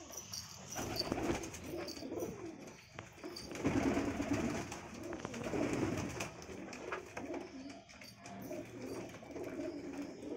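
A flock of domestic pigeons cooing continuously, many overlapping low warbling coos that swell and fade.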